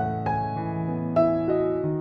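Soft background music on electric piano, single notes struck every quarter to half second over held lower notes.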